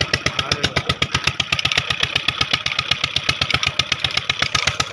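Stationary single-cylinder engine driving a tube-well pump, running steadily with an even beat of about eight strokes a second.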